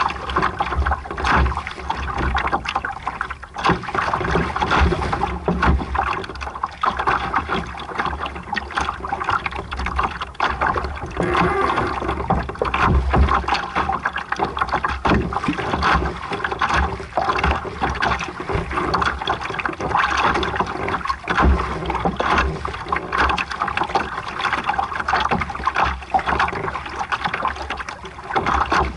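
Water splashing and rushing along a sailboat's hull as it moves under sail, in an uneven, continuous wash with frequent small splashes. Gusty low rumble of wind buffets the microphone throughout.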